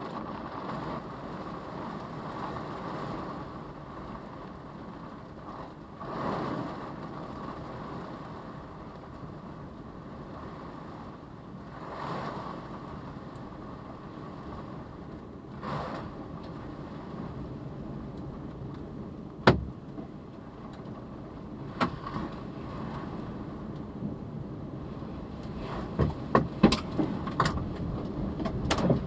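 Tornado wind heard from inside a car's cabin as a steady rushing noise that swells in gusts. Sharp hits of debris strike the car's body, single ones at first and then coming faster and louder near the end.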